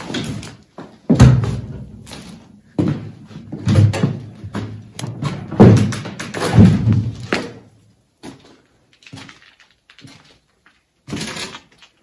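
A series of irregular knocks and thuds with a short ring after each. The loudest come about a second in and around six to seven seconds in, and fainter taps follow after about eight seconds.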